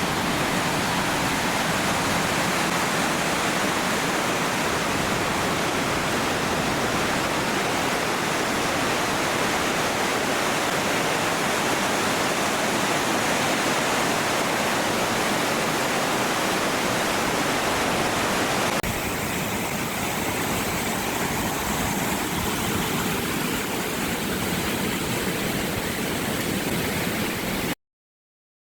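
Steady rush of Kings Creek Falls and its cascading creek. A little past halfway it switches abruptly to a slightly quieter rush, then cuts off to silence just before the end.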